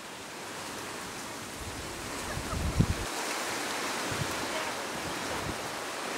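Wind rushing across the microphone outdoors, a steady noise with a few low buffeting gusts, the strongest about three seconds in.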